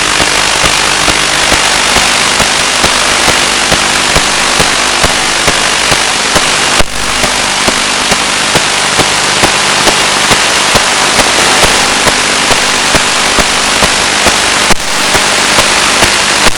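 Loud, steady static hiss from an analog 1.3 GHz FPV video receiver's audio channel, with a low hum, small regular clicks a few times a second, and two brief dropouts, one about seven seconds in and one near the end.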